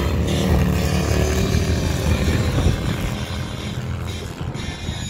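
Two vintage motorcycle engines running hard as the bikes pull away side by side in a beach drag race, getting somewhat quieter after about three seconds as they move off.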